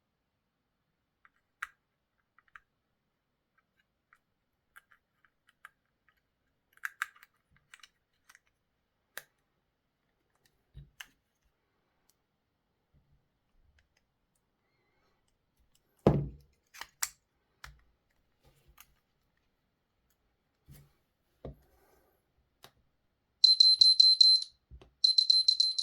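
Small plastic clicks and taps from a Range Rover smart key fob being handled and pressed back together, with one sharp knock about two-thirds of the way through. Near the end come two short bursts of fast, high-pitched electronic beeping.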